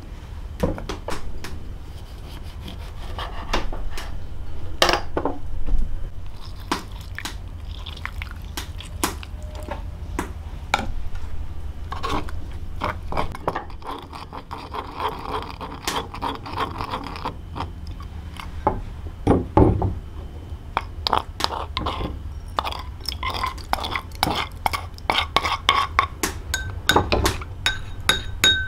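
Dishes and utensils clinking and knocking against each other again and again, with some liquid being poured or splashed in between.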